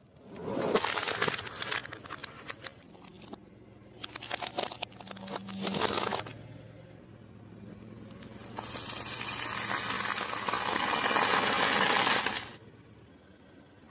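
A car tyre rolling slowly over small objects and crushing them: three separate spells of crackling and crunching, the last the longest and loudest, over a steady low hum.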